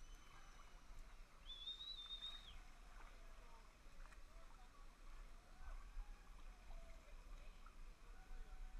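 Quiet open-air ambience with faint distant voices and a single high whistle-like tone lasting about a second, about one and a half seconds in.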